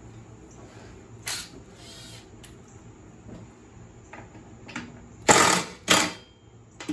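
Hand tools and sheet metal being worked while a mower deck's belt guard is unbolted and removed: a few short rasping, clattering bursts, the loudest two near the end.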